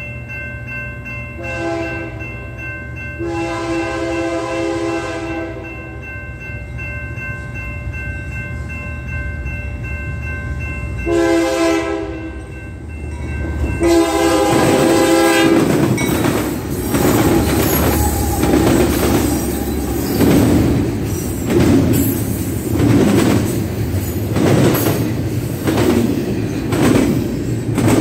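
A diesel freight locomotive's air horn sounds the crossing signal, long, long, short, long, over a steady crossing bell. Then the train passes close by: a loud rumble as the double-stack container cars roll over the crossing, with wheels clacking at a steady beat.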